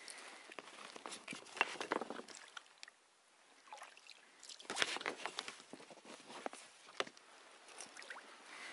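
Kayak paddle strokes in calm water: splashing and dripping in two spells, the first about half a second in and the second just under five seconds in, with a lull between them.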